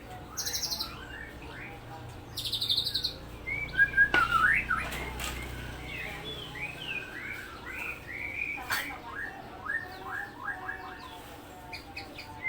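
White-rumped shama (murai batu) singing a varied run of short, quick whistled notes and chirps. Two fast, high rattling trills come in the first few seconds, the rapid 'roll tembak' bursts prized in contest shamas.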